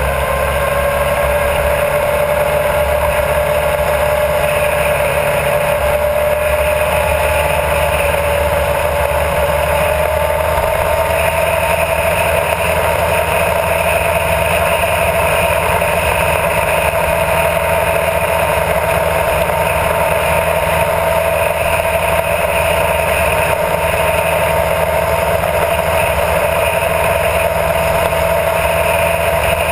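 Honda CBR1000RR Fireblade's inline-four engine running under steady throttle, its note rising slightly about a third of the way in and then holding. Wind and road noise rush beneath it.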